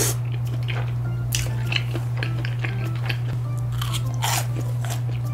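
Close-miked chewing and biting of rosé tteokbokki, chewy rice cakes and noodles in a creamy sauce, with short wet mouth clicks scattered through, the strongest about a second and a half in and again after four seconds. A steady low background tone runs underneath.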